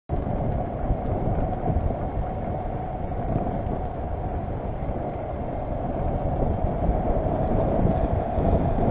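Kawasaki Versys motorcycle riding at about 45 km/h, its engine and road and wind noise heard through the onboard camera's microphone as a steady rumble, growing a little louder as it speeds up.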